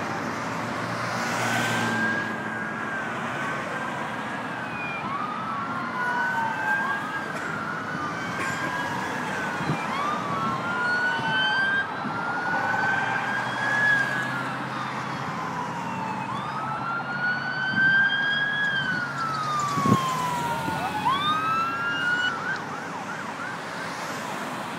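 Several emergency-vehicle sirens wailing at once, their pitch sweeping up and down and overlapping, over the steady noise of freeway traffic.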